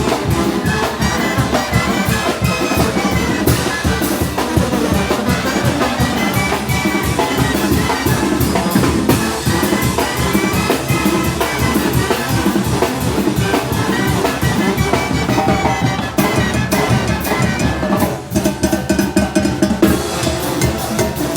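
Oaxacan brass band playing a fast, driving muertero and calenda rhythm: trumpets and other brass over a steady beat of drums and cymbals.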